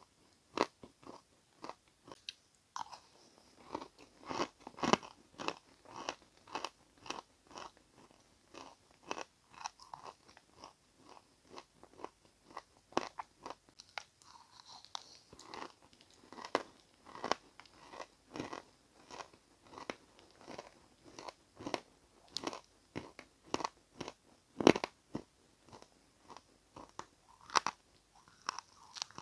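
A person biting and chewing edible chalk, a dense, irregular run of crisp crunches, roughly one or two a second, with one especially loud crunch about five seconds before the end.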